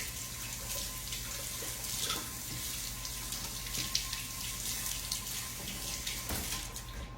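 Kitchen sink tap running, water splashing steadily as something is rinsed under it, with a few small knocks; the water shuts off near the end.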